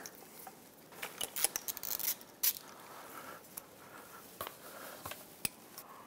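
Wires and plastic wiring-harness plug connectors being handled and pushed together on an outboard engine: soft rustling with several light, sharp clicks scattered through.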